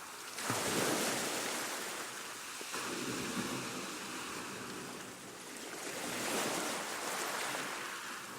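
Calm sea washing onto a shore: gentle waves surge and draw back, swelling about half a second in and again near the six-second mark.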